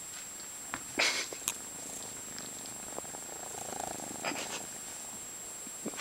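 Kitten purring close to the microphone, with a couple of brief rustles and clicks from handling.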